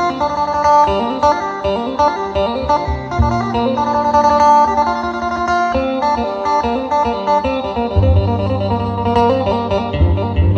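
Thai mor lam music with a plucked-string lead over a steady bass beat, played loud through a PA system with double 15-inch subwoofer cabinets. A heavier bass line comes in about eight seconds in.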